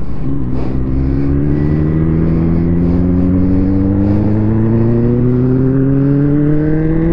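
Motorcycle engine pulling steadily in one gear, its pitch rising slowly and evenly as it gains speed.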